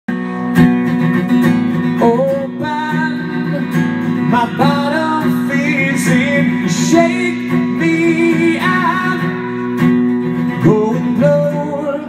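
Live acoustic guitar strummed in a steady rhythm, with a man singing over it from about two seconds in.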